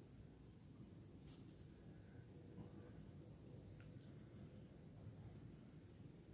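Near silence outdoors, with an insect chirping faintly in three short trills about two and a half seconds apart over a low steady rumble.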